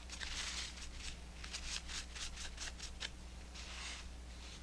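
Hands handling small parts and material at the workbench: a run of short rustling and rubbing strokes, quickest around the middle, over a steady low hum.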